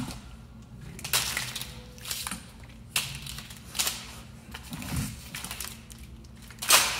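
A car's removed wiring harness in corrugated plastic conduit being dropped and shifted onto a pile on the floor. The loom and its connectors rustle and clatter in several irregular bursts, the loudest near the end.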